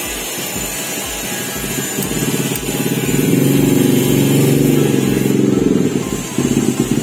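Background music with a steady low beat and heavy bass, getting louder about three seconds in.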